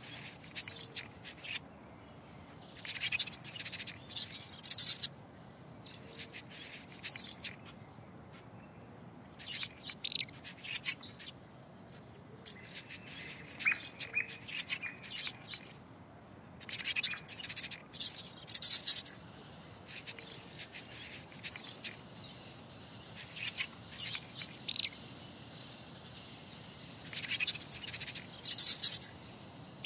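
Mouse squeaks used as a sound effect: short bursts of rapid, high-pitched chirps, each about a second long, repeating every second or two.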